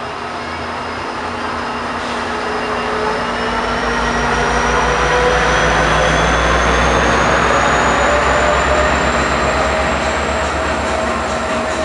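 Diesel-hauled passenger train passing close by. The locomotive's low rumble swells to a peak about halfway through, with a high squeal that slowly rises in pitch, then the cars roll past.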